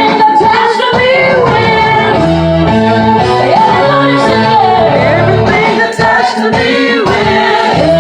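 Worship song playing: singing voices over an instrumental backing with steady bass notes.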